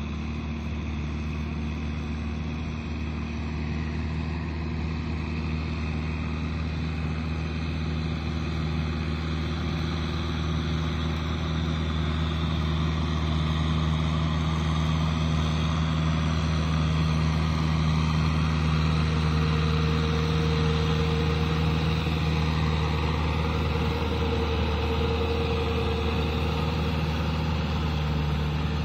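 Kubota M6040 SU tractor's diesel engine running steadily as it pulls a rear rotary tiller through wet rice stubble, growing gradually louder as the tractor draws closer.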